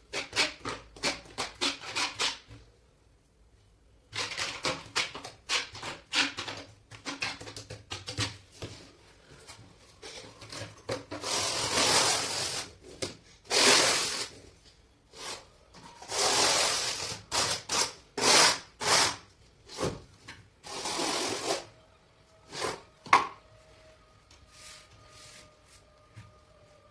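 Hand work scraping and rubbing in quick strokes, with a few longer drawn-out strokes, stopping about 22 seconds in. A faint steady tone follows near the end.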